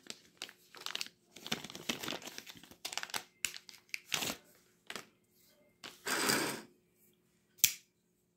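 Clear plastic bag crinkling and being torn open as a pocket knife is unbagged, in a string of short rustles with a longer rustle about six seconds in. A sharp click comes near the end.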